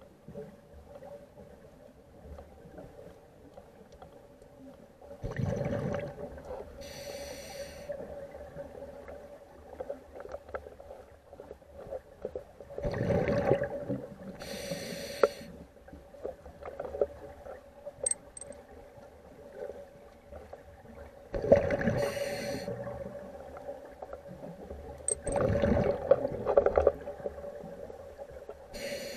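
Ambient sound-art soundtrack: a steady hum with a rushing, breath-like swell of noise four times. Each swell is followed by a short band of high hiss.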